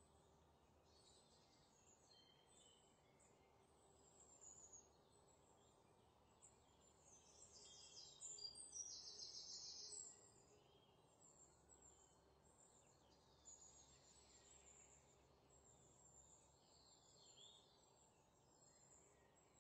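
Near silence, with faint high-pitched chirps and twitters throughout, a little louder for a couple of seconds near the middle.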